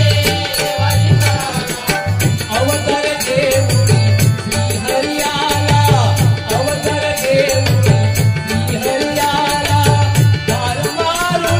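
Live Marathi bhajan music: dholki and tabla drums beating a steady folk rhythm under a harmonium melody.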